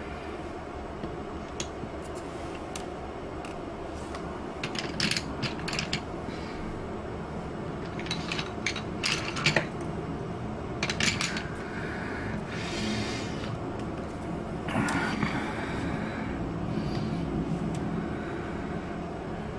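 Drawing pencils clicking and rattling against one another as they are handled, in scattered clicks and two short rustling spells, over a steady low hum.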